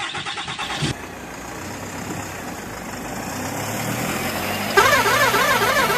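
A small engine running with a low, steady hum, preceded by about a second of rapid pulsing. About five seconds in, a louder warbling, siren-like tone joins it, rising and falling about three times a second.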